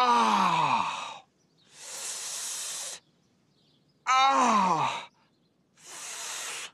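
A man in pain from a hurt knee, groaning twice with a loud falling moan, each groan followed by a hiss through clenched teeth.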